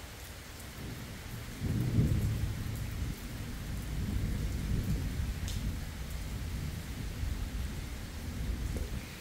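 Thunder rumbling: a low roll that swells suddenly about one and a half seconds in and keeps rolling unevenly for several seconds. Steady rain hisses throughout.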